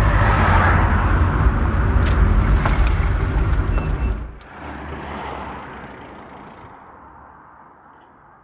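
Engine and road rumble inside a moving car as it heads to pull over. The rumble drops away abruptly about four seconds in, leaving a fainter hiss that fades out.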